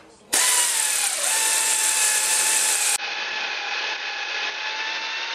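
Electric drill running steadily with a motor whine while drilling out rusted screw heads. The whine starts a moment in, dips briefly in pitch about a second in, and drops a little in level about three seconds in.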